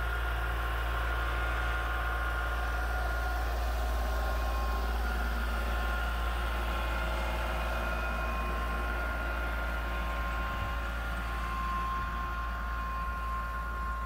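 Kubota L3901 compact tractor's three-cylinder diesel engine running steadily under load as it pushes snow with a front plow blade, with a steady high whine over the engine note.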